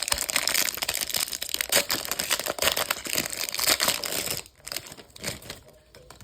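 Hockey card pack's wrapper being torn open and crinkled: dense crackling for about four seconds, then a few softer rustles as the cards are handled.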